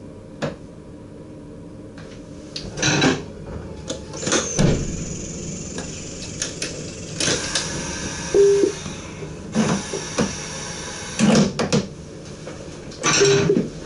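Knocks, clicks and rustling as the controls on the driving desk of a stationary DM'90 diesel train are handled, with two short beeps and a steady low hum underneath.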